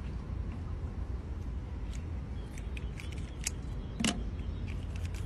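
Water splashing and sloshing in a metal basin as a cut fish is rinsed by hand, with scattered sharp clicks and splashes, the loudest about four seconds in. A steady low rumble runs underneath.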